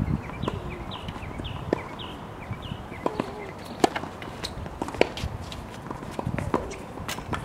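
Tennis ball being hit with a racket and bouncing on a hard court: a scatter of sharp pops, the loudest a little before halfway. A small bird chirps repeatedly in short falling notes during the first couple of seconds.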